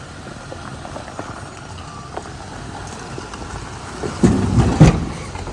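Off-road vehicle running slowly over a rough trail with a steady low rumble and scattered small knocks. About four seconds in comes a burst of heavy thuds and knocks as it hits and drags over an obstacle.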